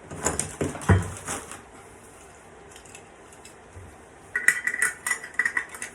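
Steel hole saw parts and arbor clinking and rattling as they are handled and fitted together: a clatter of knocks in the first second or so, then a run of quick ringing metal clinks near the end.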